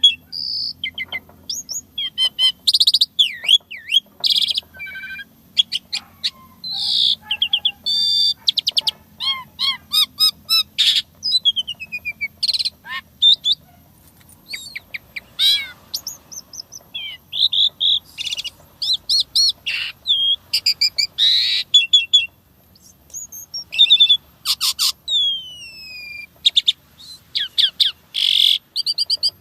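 Asian pied starling singing a long, varied song full of fill-in phrases: quick strings of clear whistles and trills mixed with harsh, noisy calls and several falling whistled glides, broken by short pauses.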